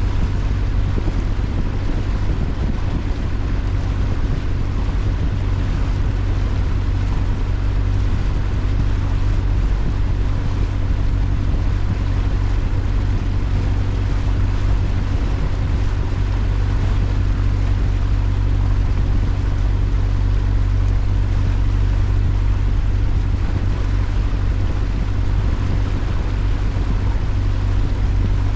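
Engine of a small canal boat taxi running at a steady cruising pace, a constant low hum with an even rush of water and air over it.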